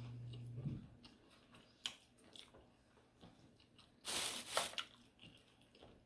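Close-up chewing of chicken enchiladas: soft, wet mouth clicks and smacks, with a louder noisy burst about four seconds in. A low steady hum cuts off under a second in.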